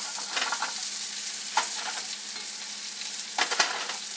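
Sliced hot link sausage, onions and mushrooms sizzling in butter in a cast-iron skillet, with a slotted spatula scraping and knocking against the pan a few times as they are stirred.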